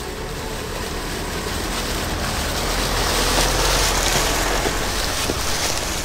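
Vehicle driving on a rough, unpaved mountain road: a steady rush of tyre and road noise that grows a little louder toward the middle.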